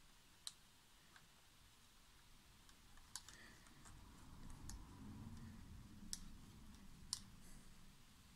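Faint handling of a camera and its stabilizer lens support bracket: about five sharp, separate clicks as the bracket is slid and tightened under the lens, with a low rubbing noise from the hands and camera in the middle.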